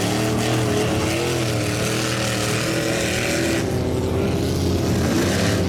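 Lifted mud truck's engine revving hard through a mud pit, its pitch rising and falling. A steady hiss over it cuts off about three and a half seconds in.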